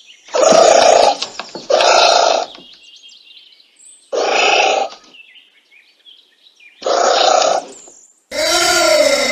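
Anteater calling: five short, harsh calls at uneven intervals, each under a second. The last call, near the end, is longer and wavers in pitch.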